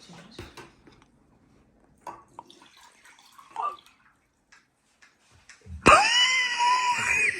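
A person loudly slurping matcha tea from a bowl, the customary slurp that finishes the drink. The slurp starts suddenly about six seconds in and holds a steady, whistling pitch for over a second, after small quiet sounds.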